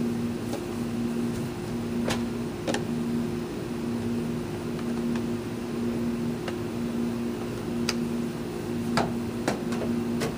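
A steady mechanical hum with two low tones, the lower one pulsing on and off evenly, with a few sharp knocks from a length of 4-inch PVC pipe being handled and set against a wall.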